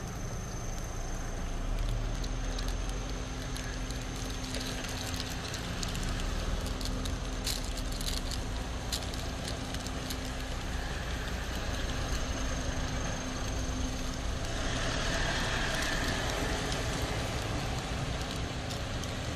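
Steady running of a car with road noise from traffic on the wet road, a vehicle passing about fifteen seconds in, with scattered light clicks over it.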